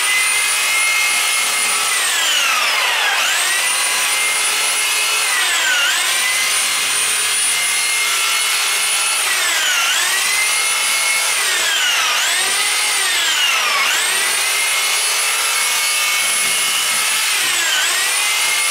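McAllister reciprocating saw cutting through the branches and trunk of a Christmas tree. Its motor whine drops in pitch each time the blade bites under load and climbs back as it frees, about six times.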